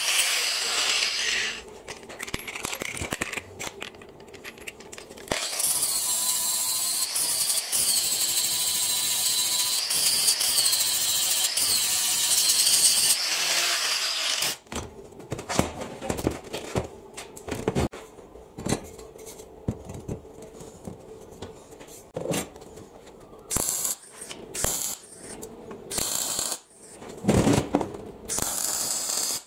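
Angle grinder running against welded steel sprockets and chain, its whine wavering as it bears on the metal, in two spells, the longer one lasting about nine seconds. Then quieter clinks of metal being handled, with a few short loud bursts near the end.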